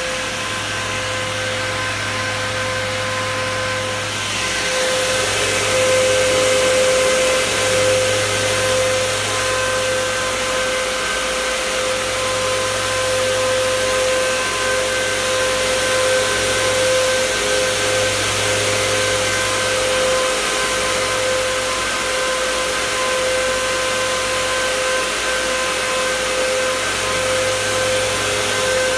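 Three Nidec W12E12BS11B5-57 high-speed fans on a 360 mm radiator running at speed: a steady rush of air with a whine, getting louder about five seconds in. A low hum runs underneath.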